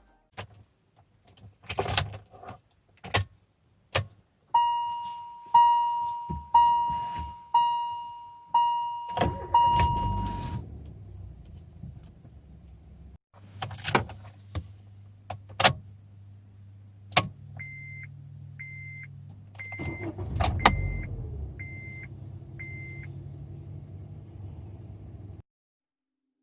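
Car door and lock clunks and clicks, then a car's warning chime ringing about once a second, six times. A car engine starts and idles steadily, with a short beeping reminder chime repeating about once a second over it and a brief surge of engine noise near the middle, before it cuts off near the end.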